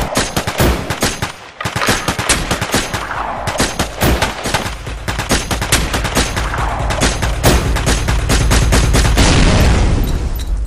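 Rapid automatic gunfire, shot after shot many times a second in long bursts, with a deep rumble underneath in the second half.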